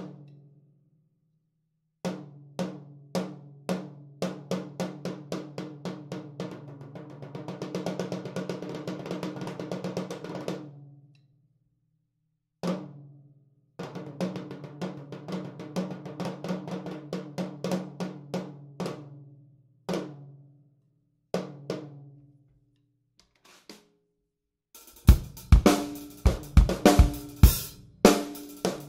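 Toms freshly fitted with Evans drumheads struck in single strokes and fast rolls, each ringing out at a sustained pitch, in short phrases separated by pauses. About 25 seconds in, a full drum-kit groove with bass drum and cymbals starts and is the loudest part.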